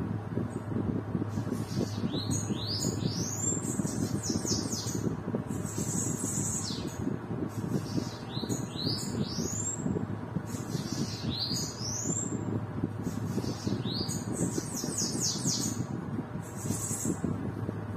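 Caged bananaquit (sibite) singing its rowdy 'baderna' song: a high-pitched, hissing phrase of quick rising and falling notes every few seconds. A steady low hum runs underneath.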